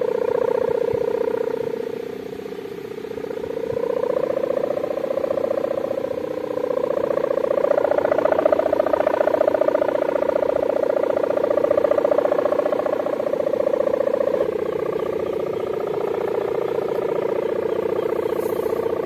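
Kite hummer (sendaren) droning in the wind, a deep buzzing hum meant to sound like a bulldozer. Its pitch and loudness rise and fall with the gusts, dipping about two seconds in and shifting pitch about two-thirds of the way through.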